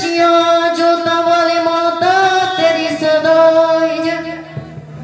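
Male voice singing a devotional bhajan, holding long drawn-out notes. The pitch lifts slightly about two seconds in, and the note fades away about four and a half seconds in.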